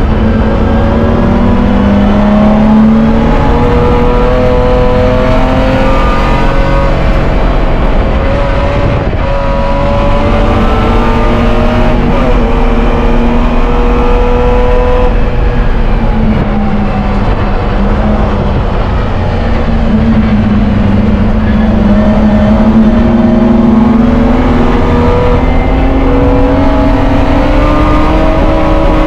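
Spec E30 BMW race car's straight-six engine, heard from inside the stripped cabin, running hard at high revs under racing load. The engine pitch climbs and dips as the car accelerates and brakes, falls for a few seconds past the middle, then climbs steadily again.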